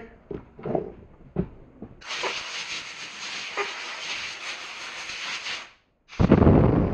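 Sandblaster gun hissing as it blasts crud off a part. It starts about two seconds in, runs for nearly four seconds and cuts off. A second, louder rush of air follows near the end.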